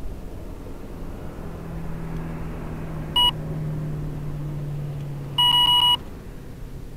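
Two loud electronic beeps, a short one about three seconds in and a longer one of about half a second near the end, over a low steady hum.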